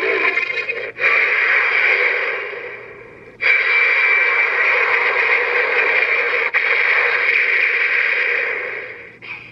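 Electronic sound effect from the Den-O transformation belt toy's small built-in speaker: a harsh, hissing burst starts about a second in and fades away. A second burst starts abruptly around three and a half seconds and holds loud until it fades near the end.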